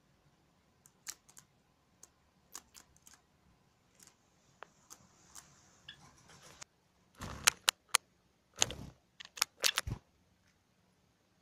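Scattered sharp clicks and taps, sparse at first and then louder and thicker from about seven seconds in, from a Java sparrow's claws and beak on hard surfaces, the rim of a ceramic water dish among them.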